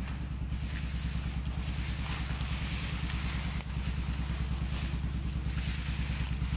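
Tall grass rustling and brushing as someone pushes through it, over a steady low drone with a fast, even pulse from an unseen running motor.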